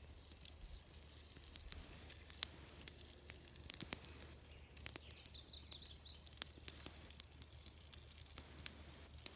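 Irregular pops and crackles from a small wood campfire with bacon frying over it. A bird chirps briefly about five seconds in.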